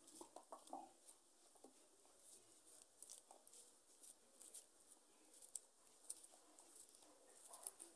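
Faint, irregular soft clicks and snicks of a kitchen knife cutting through a tomato held in the hand.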